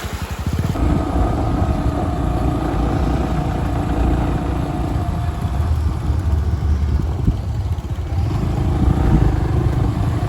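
A motor engine running at a steady speed, getting louder about a second in.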